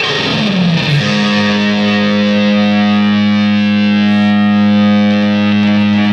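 Distorted electric guitar music. A note slides down in pitch over about the first second, then a held chord rings out steadily.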